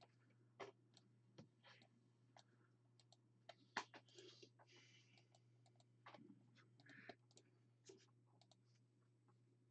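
Faint, scattered clicks of a computer mouse and keyboard, a few irregular taps every second or so, over a faint steady low hum.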